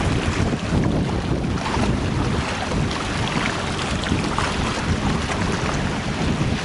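Strong wind buffeting the microphone in a steady rumble, over choppy lake water lapping against a rocky shore.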